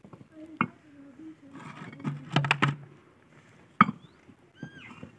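Bricks knocking and clacking together as they are set down and stacked by hand. There are a few sharp knocks, the loudest just before four seconds in.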